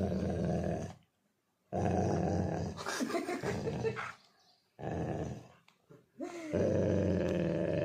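A Labrador growling in about four long, rough bouts with short breaks between them.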